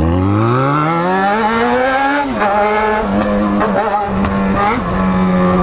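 Yamaha XJ6's inline-four engine, running through an open exhaust with only the pipe and no muffler, accelerating. Its pitch rises for about two seconds, drops suddenly at an upshift, then holds steady.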